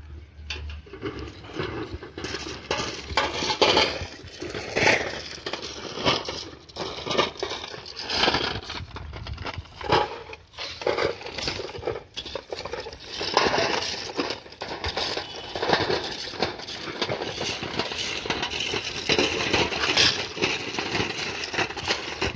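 Crushed-stone railway track ballast crunching and clinking in irregular bursts, about one every second or two.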